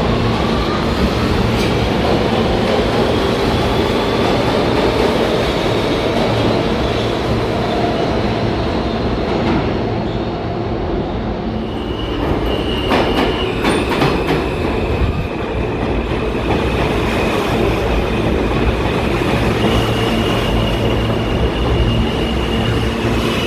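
New York City subway train running through the station, its noise loud and steady. A rising motor whine sounds near the start, and a cluster of clicks comes about halfway through. High-pitched wheel squeal comes in twice, briefly in the middle and again near the end.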